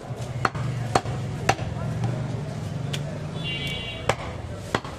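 Large butcher's knife chopping goat meat on a wooden tree-stump block: about six sharp knocks at uneven intervals, half a second to a second and a half apart.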